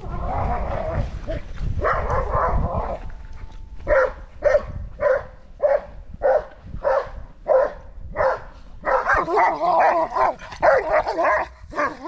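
Dog barking. Dense, overlapping barking at the start and again near the end, with a run of evenly spaced barks in between, a little under two a second.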